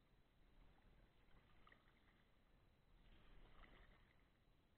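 Near silence: faint splashes and drips of a kayak paddle dipping into calm river water, a little louder about three seconds in.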